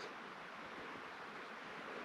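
Faint, steady outdoor background hiss with no distinct event.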